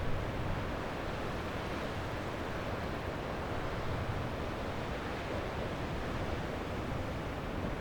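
Sea waves washing onto a beach as a steady surf wash, with no distinct breaks standing out.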